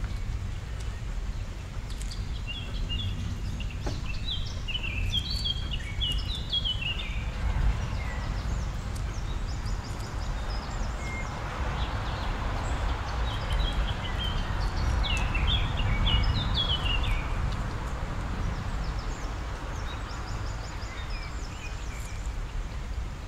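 Several bursts of quick, high bird chirps, a few notes at a time, over a steady low background rumble.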